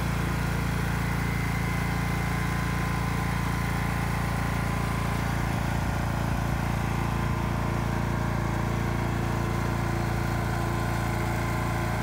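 Troy-Bilt Bronco riding lawn mower's engine idling steadily.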